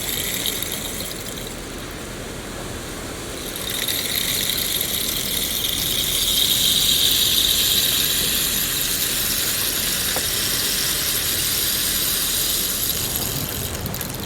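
Forest rain ambience: steady rain with a high, even hiss layered over it that swells about four seconds in.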